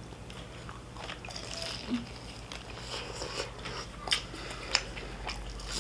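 A person chewing food close to the microphone, with a few light clicks and taps of a fork against a plate or container, over a steady low electrical hum.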